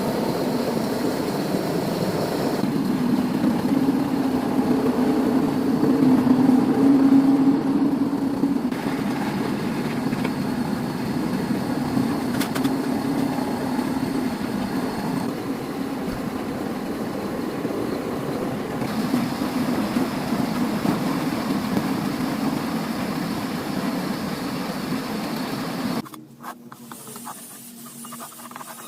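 A motor running steadily with a low hum, in a few stretches that change slightly in tone. It cuts off abruptly near the end, leaving a quieter rubbing sound.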